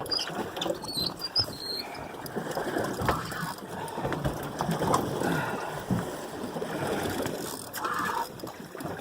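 Open-water boat noise: wind and water around a small fishing boat, with scattered knocks and clicks and a few brief squeaks.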